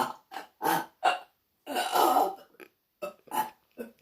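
A girl burping over and over in quick short bursts, about nine in all, with one longer burp about two seconds in. The burps are involuntary: she can't stop them.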